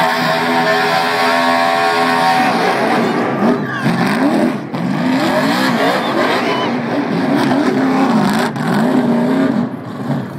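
NASCAR stock car's V8 engine at high revs during a burnout, spinning its tyres to smoke. It is held steady at first, then from about three seconds in the revs rise and fall over and over, easing off near the end.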